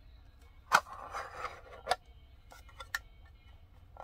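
A small metal storage tin being handled and slid into its cardboard sleeve: one sharp click a little under a second in, a brief scraping, then two lighter clicks.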